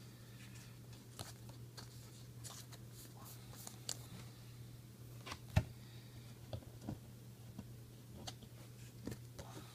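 Trading cards being handled and flipped through: soft scattered clicks and slides of card stock, the sharpest about halfway through, over a steady low hum.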